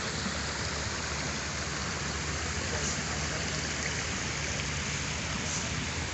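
Steady rushing of running water, with a faint low hum underneath.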